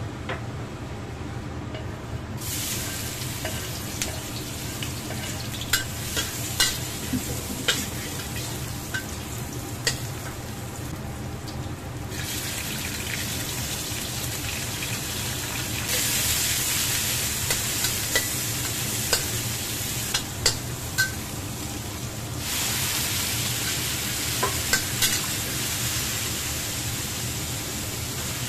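Garlic and shrimp sizzling in hot oil in a stainless steel wok as they are stir-fried, with a metal spatula clinking and scraping against the wok. The sizzle starts about two seconds in, eases off midway, then grows louder in steps as more food goes in.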